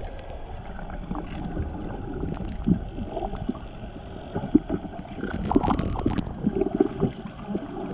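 Muffled underwater sound picked up by a camera below the surface: a steady low rumble of water with scattered clicks and gurgles, and a louder cluster of clicks and gurgling about five and a half seconds in.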